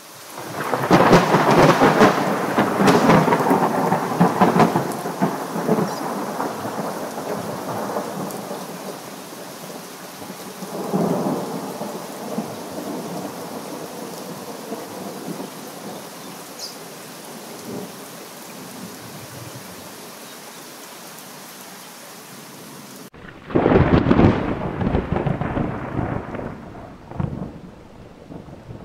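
Thunderstorm: a long roll of thunder over steady rain, dying away after about five seconds, with a smaller rumble about eleven seconds in. Then an abrupt cut to a drier recording, in which another loud roll of thunder breaks and fades out.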